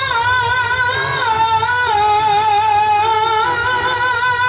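A male qari chanting Quran recitation into a microphone over a PA system, holding one long melismatic note that wavers and steps down slightly in pitch about a second in.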